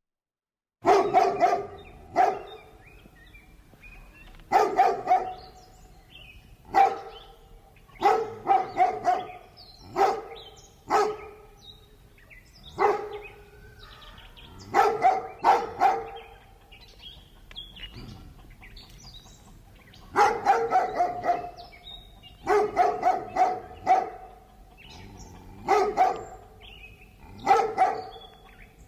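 A large dog barking, in single barks and quick runs of two to four, every second or two with short gaps between, starting just under a second in.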